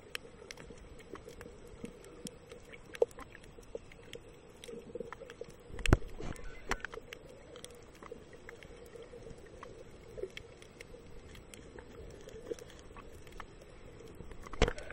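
Underwater sound on a coral reef: scattered sharp clicks and crackles over a faint steady hum, with a loud knock about six seconds in and a few more knocks near the end.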